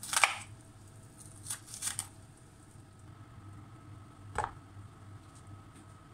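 Short kitchen handling noises: a sharp knock of a chef's knife on a bamboo cutting board at the start, two softer scrapes about a second and a half to two seconds in, and one dull knock about four seconds in, over a low steady hum.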